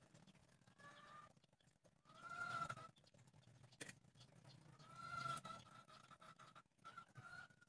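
Chickens calling in the background: a short drawn-out call about two seconds in and a longer one from about five seconds. There is a single sharp tap just before four seconds.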